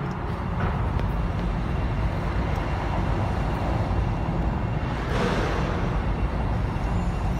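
Engine and tyre noise heard inside the cabin of a BMW 218i driving slowly: a steady low rumble with a brief swell of hiss about five seconds in.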